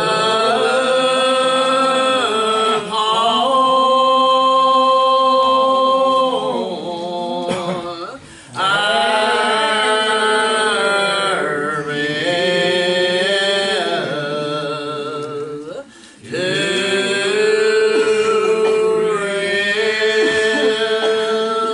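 Church congregation singing a hymn unaccompanied, in the slow, drawn-out style of lined-out hymnody, each syllable held for seconds. Three long phrases, with short breaks about 8 and 16 seconds in.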